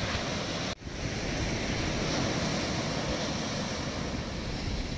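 Sea surf breaking on a sandy beach, a steady rushing noise with wind buffeting the microphone. The sound drops out for an instant just under a second in.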